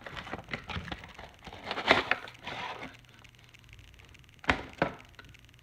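Cardboard toy packaging being handled and pulled open where it is taped: a run of crackles and snaps, loudest about two seconds in, then two sharp clicks near the end.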